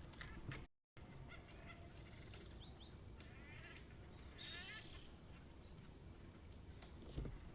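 Woodpecker calling: two short bursts of rapid chattering notes, about three and four and a half seconds in, the second louder. A low thump near the end.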